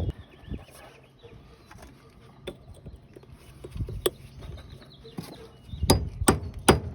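A few scattered light taps and clicks, then from about six seconds in a run of loud hammer blows on metal, about three a second.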